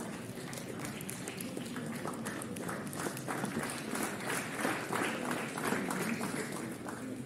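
Audience applauding: many hands clapping, building up through the first seconds and tapering off near the end.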